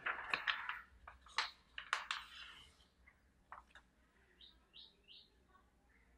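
Sheets of paper being handled and laid down on a desk: rustling with several sharp taps over the first couple of seconds. About halfway through come three faint, short, high chirps.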